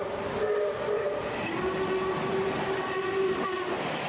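Train horn sounding in long held chords over the noise of a moving train; a second, slightly lower blast starts about a second and a half in and stops abruptly shortly before the end.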